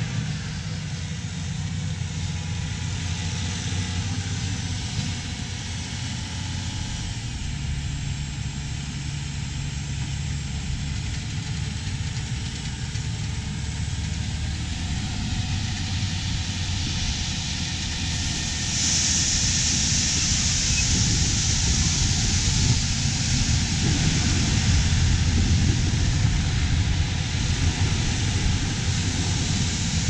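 A large farm tractor's diesel engine runs steadily under load while the grain cart's auger unloads corn into a truck. The sound gets louder about two-thirds of the way through, with a brighter hiss over it.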